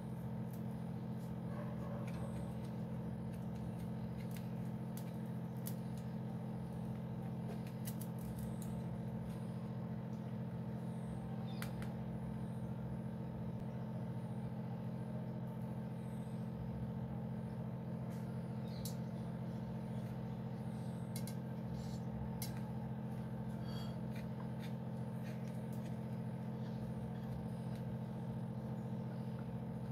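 A steady low hum, with scattered faint clicks and scrapes of a knife against a steel plate as a slab of kalakand is cut into squares.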